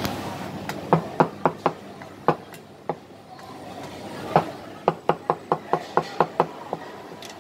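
Chinese cleaver chopping braised beef on a plastic cutting board: a handful of sharp knocks about a second in, then after a pause a quicker run of about ten, roughly four a second.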